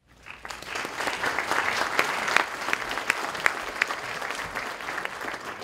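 Audience applauding, swelling over the first second and tapering off near the end.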